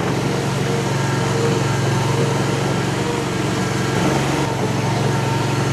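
Mini skid steer's Honda GX690 V-twin gasoline engine running steadily as the machine drives forward with a raised pallet load of about 750 pounds.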